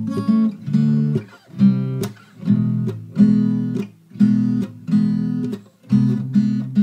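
Background music: guitar chords strummed about once a second, with no singing.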